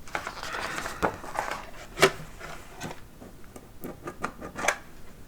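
Small metal tin box being opened and its contents handled: soft rustling with a scatter of light clicks and taps, the sharpest about two seconds in.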